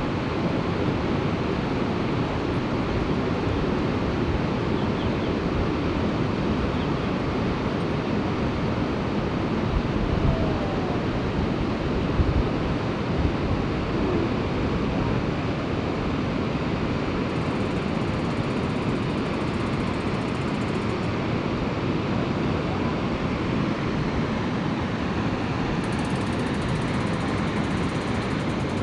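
Steady rushing noise of the River Aire in flood, mixed with wind buffeting the microphone. A few stronger gusts thump on the microphone about ten to thirteen seconds in.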